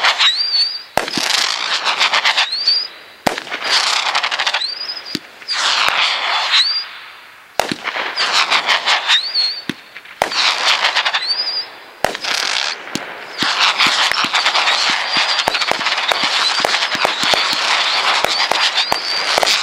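A 36-shot, 500-gram Oktoberfest fireworks cake firing one shot after another. Each shot is a sharp launch report followed by a crackling burst with short whistles, about every two seconds. About two-thirds of the way through, the shots come close together into one unbroken run of crackling.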